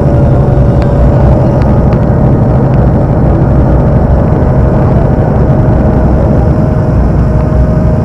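A vehicle ferry launch's engine running steadily underway: a loud, even low rumble with a steady whine above it.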